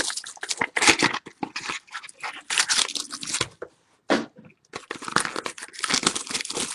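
Trading card pack wrappers being torn open and crinkled by hand, in quick irregular rustles with a short pause a little past the middle.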